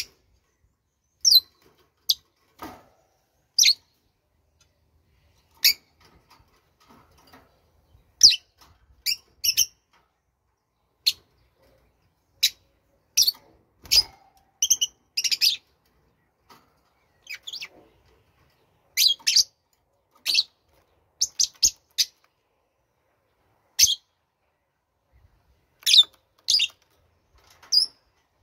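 A small bird chirping: short, high chirps come irregularly, singly and in quick little runs, with short gaps between them.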